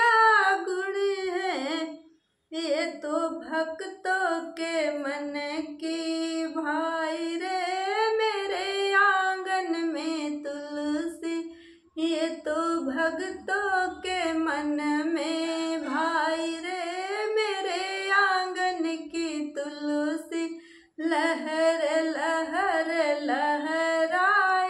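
A woman singing a Hindi devotional song to Tulsi Maiya, solo voice without accompaniment, with brief pauses between phrases about two, twelve and twenty-one seconds in.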